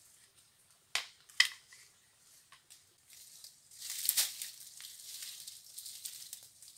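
Footsteps through dry leaf litter and undergrowth, with two sharp cracks about a second in. From about four seconds in there is a louder stretch of crackling and rustling as dry brush is pushed aside.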